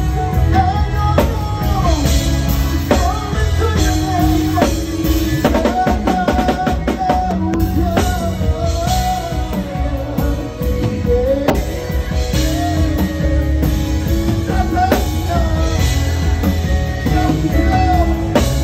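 Live band playing Ghanaian gospel worship music, a drum kit played with sticks driving it under bass, guitar and a singing voice. About six seconds in the drums break into a quick run of rapid hits.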